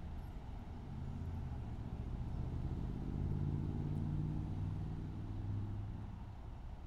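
A road vehicle's engine passing by, its low hum growing louder to a peak about halfway through and then fading.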